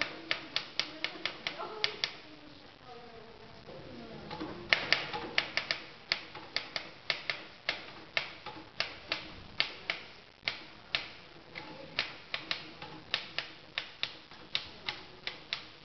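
Typewriter keys being struck one at a time: a quick run of keystrokes, a pause of about two seconds, then steady typing at about two to three strokes a second.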